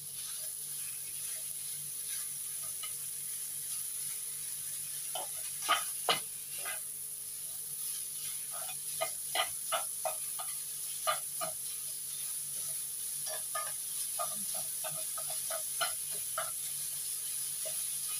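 Minced pork and chili paste sizzling in a non-stick frying pan, with a steady hiss, while a plastic slotted spatula stirs and scrapes through it in short, irregular strokes.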